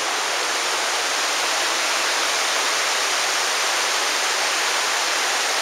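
The Virgin River rushing steadily over rocks in a narrow canyon, an even hiss of flowing water.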